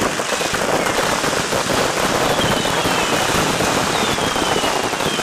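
Many fireworks going off at once in a dense, continuous crackle and popping. A few high whistles falling in pitch come in from about two seconds in.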